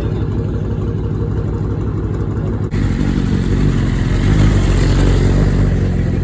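A Dodge Charger's engine idling steadily, then, after a cut nearly three seconds in, a BMW sport bike's engine running louder as the motorcycle pulls away, swelling about four to five seconds in.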